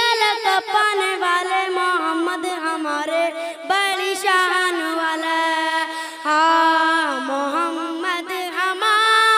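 A young boy singing a devotional chant solo into a microphone with no instruments, in a high voice with long held, wavering notes.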